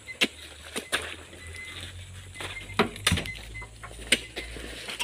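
Irregular knocks and thuds of oil palm fruit bunches being speared with spiked poles and tossed up onto the load in a dump truck's bed, one to two strikes a second. The sharpest knocks come about a second in and around three and four seconds in.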